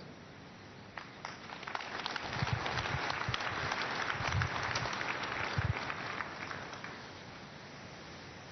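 Church congregation applauding: many hands clapping start about a second in, swell, and die away near the end.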